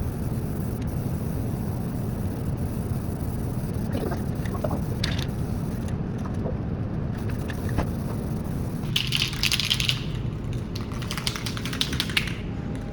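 Welding work on a steel propane tank: a steady low rumble with scattered metallic clicks and clanks, then short bursts of crackling hiss about nine and eleven seconds in.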